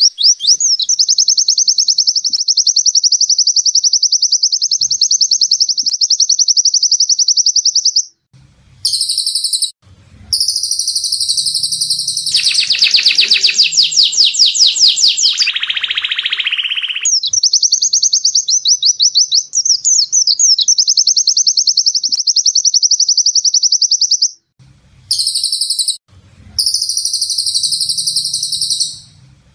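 Caged songbird singing long, very rapid, high-pitched trills, broken by short pauses, with a more varied passage in the middle that slides downward and ends on a lower, buzzier phrase.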